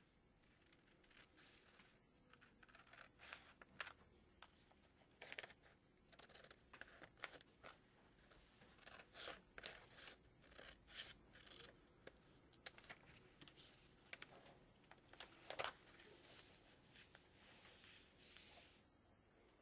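Scissors cutting through a sheet of paper along a fold: a long run of quick, irregular snips. Near the end the cut sheet rustles softly as it is handled.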